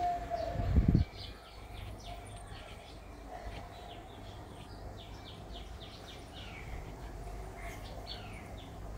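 Small birds chirping, many short high chirps and quick falling notes, over a low steady hum. In the first second a loud steady tone slides sharply down in pitch and cuts off.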